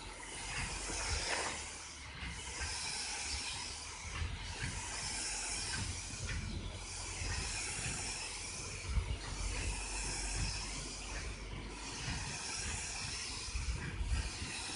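A steady hiss that dips briefly about every two seconds, over an uneven low rumble.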